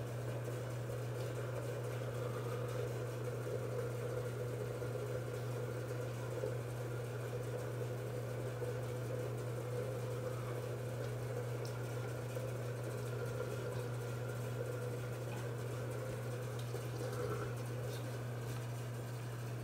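Steady low mechanical hum, with fainter scrubbing of a toothbrush on teeth.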